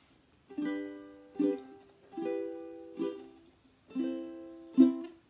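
Ukulele strummed in an instrumental intro: about six chord strums at an even pace, each ringing and fading before the next.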